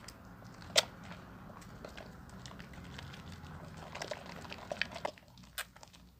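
Hands lathering a wet bar of Royal soap: soft squishing and crackling of the foam, with scattered sharp clicks, the loudest about a second in. It gets quieter near the end.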